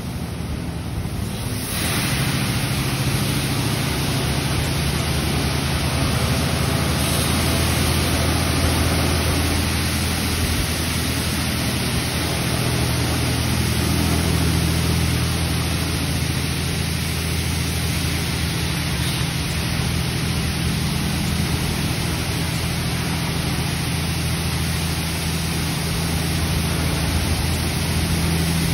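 PDQ LaserWash 4000 touchless car wash spraying high-pressure water jets over an SUV: a steady hiss of spray on the car and floor over a low steady hum. The spray starts about two seconds in.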